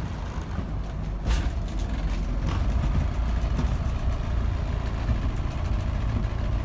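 Water taxi's engine running steadily under way, a low rumble, with one brief rush of noise about a second in.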